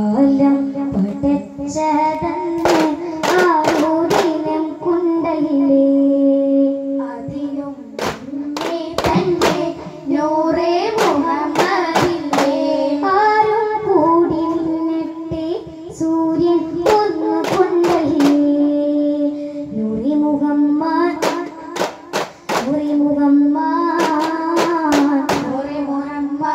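High voices singing a slow, wavering melody with long held notes, accompanied by sharp hand claps that come in quick clusters of several claps with pauses between.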